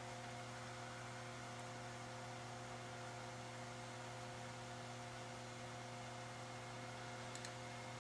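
Steady low electrical hum with several faint steady tones above it, unchanging throughout. A couple of faint clicks come near the end.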